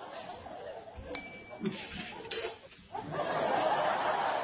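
A single clink of a ceramic dinner plate about a second in, ringing briefly at a clear high pitch.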